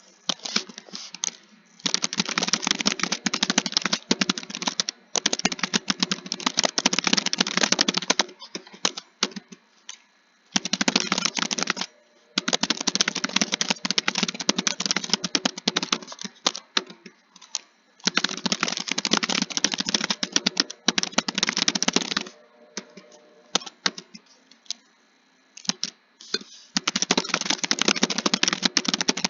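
Computer keyboard typing in fast runs of keystrokes a few seconds long. Short pauses with a few scattered single key presses break up the runs.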